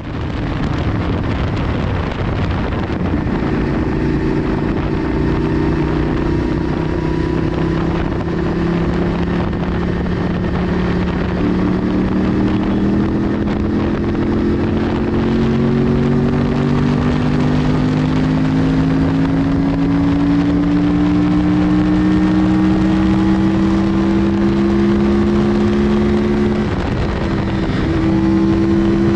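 Yamaha R1's crossplane inline-four running through a Toce aftermarket exhaust while riding, its note climbing slowly and steadily as the bike pulls, then breaking and settling at a new pitch near the end. Wind rushes over the microphone underneath.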